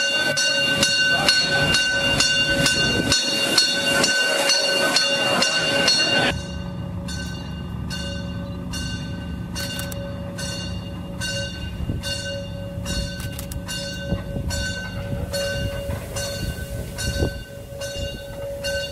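Bell of the narrow-gauge steam locomotive 99 331 ringing steadily, about two strokes a second, as the locomotive moves along the track. About six seconds in it drops suddenly to a fainter ringing over a low steady hum.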